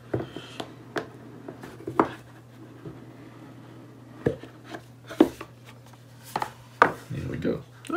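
Cardboard product box being handled and opened: scattered light taps and knocks of fingers and box on the table, with a short rubbing scrape near the end.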